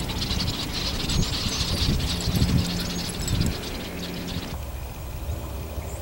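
A large flock of migratory songbirds taking flight together: a dense din of many overlapping chirping calls that thins out about four and a half seconds in. Low rumbling and thumping runs underneath.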